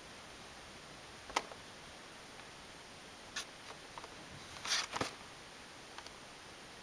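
Scattered light clicks and a brief rustle of packaging being handled, loudest about five seconds in, over a steady hiss.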